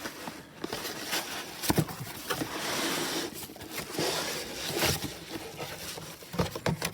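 Packaging being handled while a space heater is unboxed: rustling with scattered sharp knocks.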